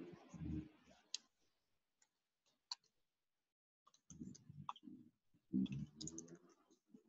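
A person's voice murmuring too low to make out, at the start and again from about four seconds in, with two sharp clicks between them.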